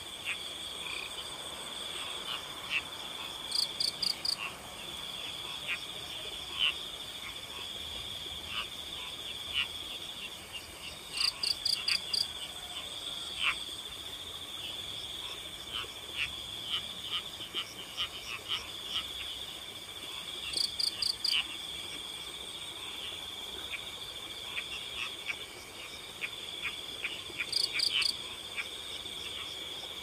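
Night chorus of crickets keeping up a steady high trill, with frogs calling in many short notes over it. A higher, pulsed call cuts in four times, roughly every seven seconds.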